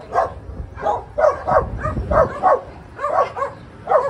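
Puppies yipping and barking in a rapid series of short, high-pitched yips, several a second.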